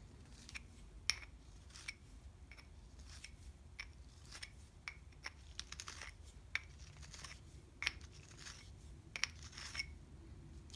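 Hand deburring tool with a countersink cutter scraping the edges of drilled holes in a metal block: a run of short, faint scrapes and clicks at irregular spacing.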